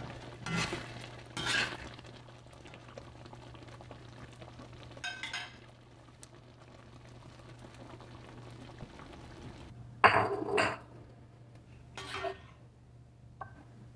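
A metal spoon scrapes and clinks against a wok while stirring a steaming tomato-and-egg sauce, with a steady low hum underneath. About ten seconds in comes a sharp clink, the loudest sound, then a few lighter knocks near the end as the food is scooped out.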